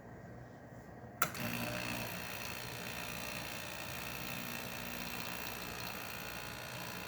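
A click about a second in as the brew is started on a Quick Mill QM67 dual-boiler espresso machine, then its pump runs steadily, pulling a shot of espresso.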